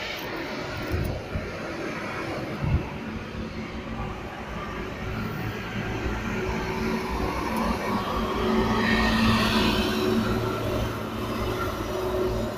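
Car engine running, heard from inside the cabin as a steady low hum, with the noise swelling for a couple of seconds about nine seconds in.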